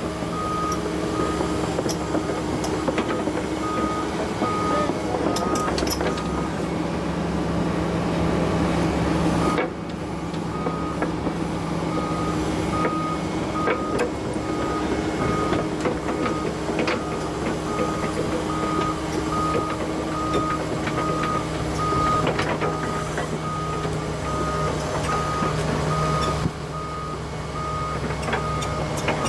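Volvo ECR145EL excavator's diesel engine running steadily with its travel alarm beeping in a regular pattern, mixed with scattered sharp cracks and knocks. The sound level drops abruptly about ten seconds in and again near the end.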